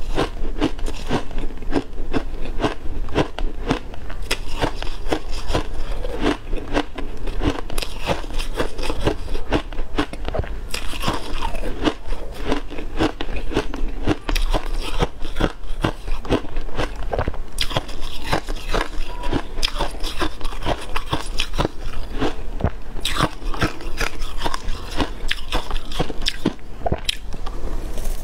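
Shaved ice being bitten and chewed close to the microphone: dense, continuous crunching and crackling of ice.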